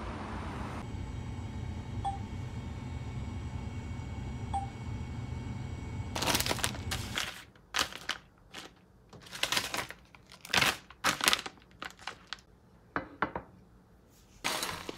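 A steady low rumble for about the first seven seconds, then a plastic food pouch crinkling in irregular bursts as it is handled, with a few light knocks of a ceramic baking dish set on a countertop.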